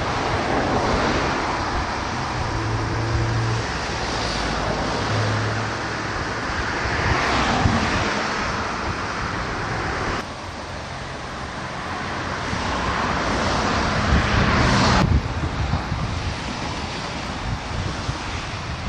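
Road and wind noise of a moving car, with traffic passing by in swells; the sound changes abruptly about ten and fifteen seconds in.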